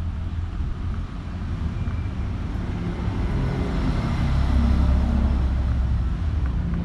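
Low rumble of a motor vehicle going past, swelling to its loudest about four seconds in and then easing off.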